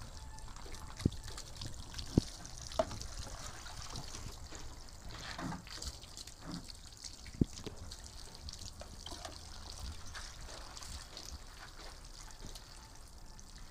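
Water poured from a plastic mug splashing and trickling over a wet dog's coat as it is rinsed, scoop after scoop. A few sharp knocks stand out: three within the first three seconds and one more about halfway through.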